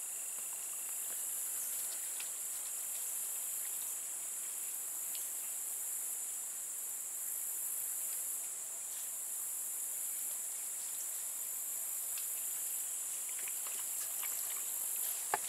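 A steady, high-pitched drone of insects such as crickets and katydids in summer woodland, with a single short sharp click near the end.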